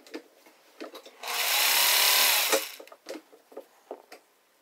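Singer 401 sewing machine run briefly on its motor: about a second and a half of whirring whose pitch rises and falls back, with light clicks and taps before and after.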